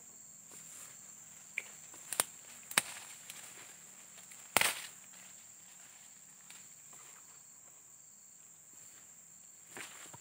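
A steady high-pitched insect drone, broken by sharp snaps or knocks about two, three and four and a half seconds in, the last the loudest.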